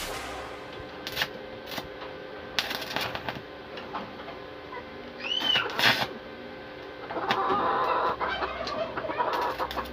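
Stick-welding arc on a steel chair frame: short crackling bursts as the electrode is struck, then a steady frying crackle for about a second and a half near the end. Chickens cluck in the background.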